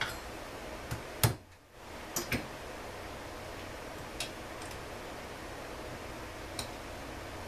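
Scattered clicks and knocks as the parts of an Echo CS-400EVL chainsaw are handled on a workbench, over a steady background hiss. The sharpest knock comes just over a second in, with a few lighter clicks after it.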